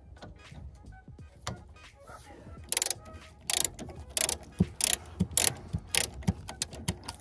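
Ratchet wrench clicking in short, loud bursts, one stroke about every half-second to second from about three seconds in, as a bolt is worked loose.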